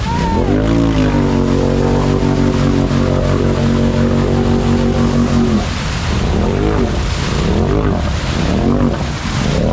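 Side-by-side UTV engine revving hard as it churns through a deep mud hole. It holds at high revs for about four seconds, then is revved up and down several times in quick pulses.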